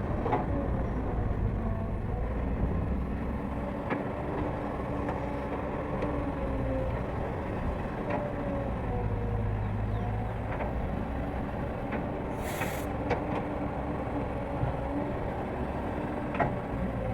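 Excavator's diesel engine running under changing load, with a hydraulic whine that rises and falls as the machine works. There are occasional knocks and a short burst of hiss about twelve seconds in.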